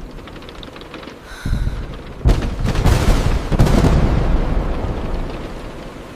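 Thunder over steady rain: a short low rumble about a second and a half in, then a sharp thunderclap about two seconds in that rolls on and slowly fades over the next few seconds.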